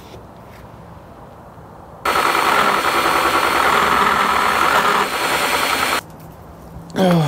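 Power drill driving a mounting screw into the wall, running steadily for about four seconds from about two seconds in, then stopping abruptly.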